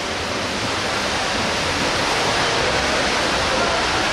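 Steady rushing noise of pool water splashing during water polo play, growing slightly louder.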